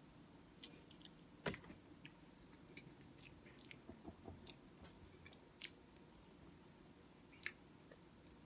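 Faint close-up chewing of a mouthful of beef and bean burrito: scattered soft wet mouth clicks over near quiet, with one louder click about a second and a half in.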